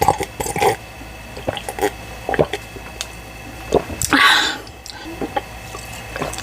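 Close-miked wet mouth sounds of eating: scattered lip smacks, clicks and squishes from chewing. About four seconds in there is a short, louder breathy rush.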